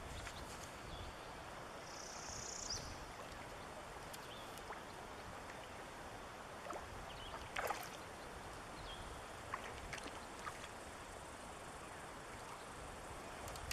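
Steady rush of a small brook's flowing water, with a few short, sharp ticks around the middle.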